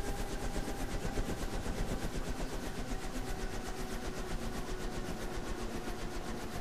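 Helicopter running steadily: an even, fast rotor-blade chop over a turbine whine, the whine dipping slightly in pitch about three seconds in.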